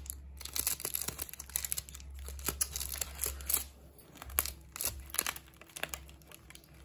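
A metallised plastic takeaway pouch crinkling and rustling as hands squeeze and open it to empty out chole, with irregular crackles throughout.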